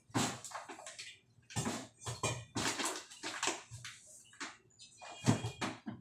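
Water splashing and sloshing in short, irregular bursts, with a louder knock about five seconds in.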